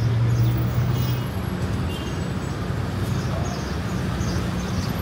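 Road traffic noise: a motor vehicle engine drones low, loudest in the first second or so, over a steady hum of traffic.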